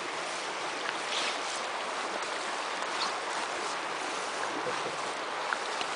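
Steady rush of a small stream's flowing water, with a few faint short ticks on top.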